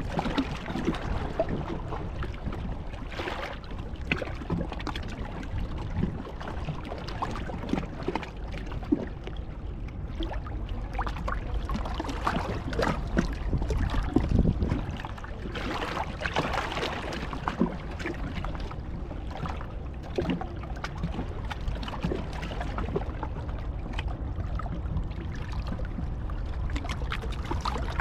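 Water lapping and splashing with a low rumble, dotted with scattered sharp clicks.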